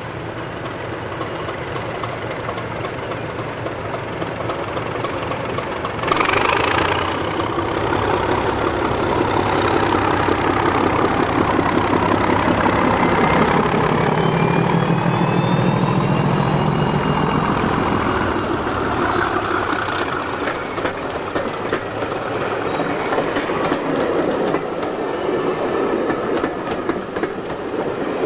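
A Class 37 diesel locomotive passes under power, its English Electric V12 engine running loudest in the middle as it goes by. A thin high whistle rises and then falls in pitch as the locomotive passes, followed by the clickety-clack of the coaches' wheels over the rail joints.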